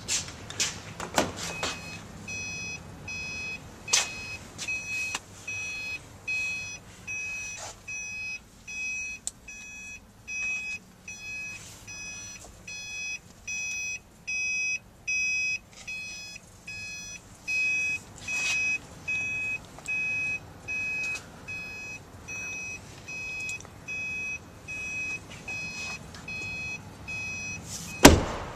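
A 2009 Subaru Forester's cabin warning chime beeping steadily, about one and a half beeps a second, with a few handling clicks. A loud thump comes near the end.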